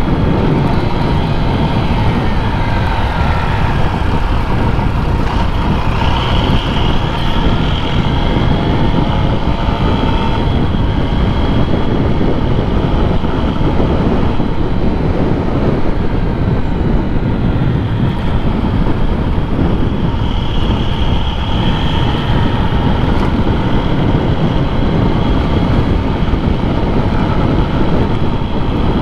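Motorcycle being ridden on the road: engine running under a steady rush of road and wind noise, with no clear changes in engine speed.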